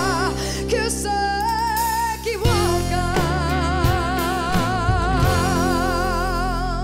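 A woman singing long held notes with wide vibrato over acoustic guitars, upright bass and drums: a higher note about a second in, then a long lower note held to the end.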